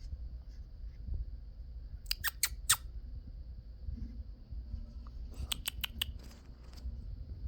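A person making kissing sounds with the lips: a quick run of about four sharp smacks a couple of seconds in, and another run of five or six near the end.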